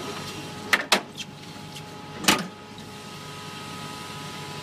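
Sharp metallic knocks and clanks inside a moving Zipper amusement-ride car, three close together about a second in and a louder one a little past two seconds, over a steady hum of ride machinery.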